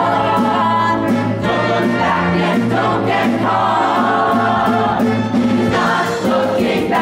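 Musical theatre ensemble singing in chorus, holding long notes over instrumental accompaniment with a steady drum beat.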